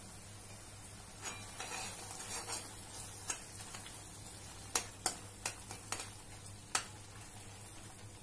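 A steel spoon stirring thick spinach gravy in a non-stick kadhai: soft scraping for the first few seconds, then a handful of sharp clicks as the spoon knocks against the pan, over a faint sizzle of the gravy cooking.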